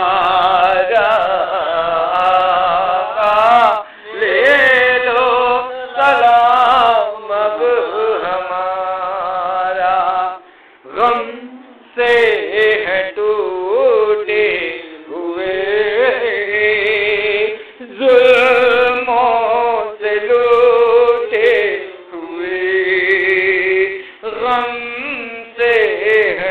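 A man chanting a devotional Urdu salam in long, wavering melodic phrases, with short breath pauses between lines.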